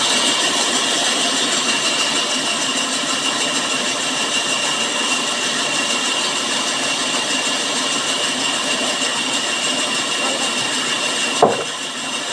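Sawmill saw running steadily with a high, even whine as it cuts wood. A single sharp knock comes about eleven and a half seconds in.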